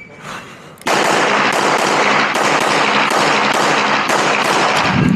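A string of pistol shots in rapid succession, about two to three a second, starting about a second in, with the reports ringing into one another: a competitor shooting a timed IPSC course of fire.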